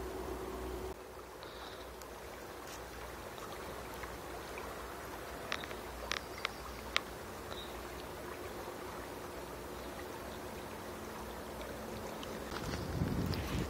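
Shallow stream running over stones, a steady rushing hiss. A few short sharp ticks come about six seconds in, and wind starts buffeting the microphone near the end.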